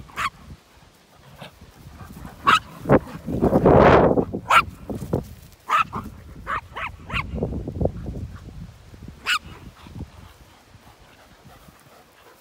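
Small dog yapping in short, sharp barks, about ten of them spread over several seconds, with a loud rush of noise around four seconds in.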